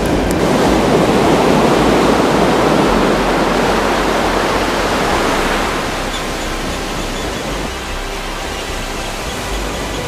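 Ocean surf: the rush of a breaking wave that swells up over the first second or so, stays loud for several seconds and eases off about six seconds in into softer, steady surf.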